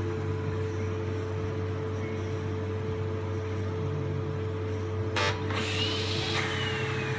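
Horizon BQ-270 perfect binder running with a steady motor hum. About five seconds in there is a short clatter, followed by a brief rushing hiss with a falling whine.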